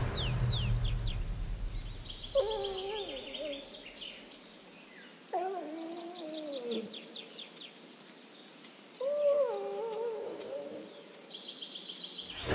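Wolves whining: three short, wavering whimpers a few seconds apart, the middle one sliding down in pitch. Songbirds chirp and trill throughout.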